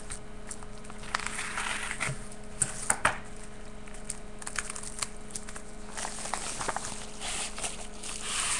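Mailed package being opened by hand: its wrapping crinkling and rustling in spells, with a few sharp cracks about three seconds in.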